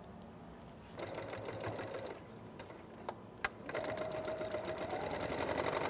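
Electric sewing machine stitching around the edges of a fabric strip to finish it: a short run about a second in, a single click, then a longer run of rapid stitching from about four seconds in that grows louder, with a steady motor whine.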